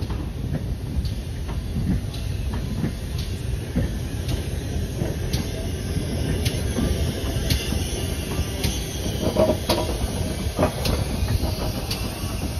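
Heritage railway passenger coaches rolling slowly past with a steady low rumble, their wheels clicking over the rail joints about once a second. A faint wheel squeal comes in around nine to ten seconds in.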